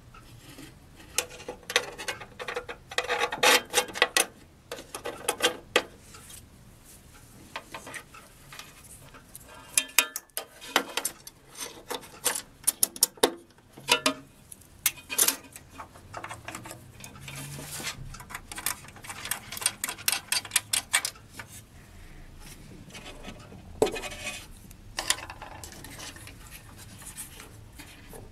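Small metal parts being handled against a brass model-boat hull: irregular clicks, taps and scraping as a servo and its brass mount are fitted by hand.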